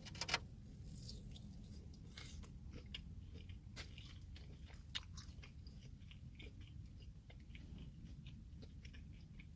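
Biting into a crispy fried chicken tender close to the microphone: a few sharp crunches right at the start, then steady chewing with small crackles of the breading and one sharper crunch about halfway through.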